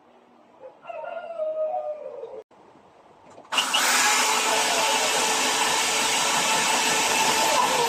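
Corded electric drill boring into the wall, starting abruptly about three and a half seconds in and running loud and steady, its motor pitch dropping near the end.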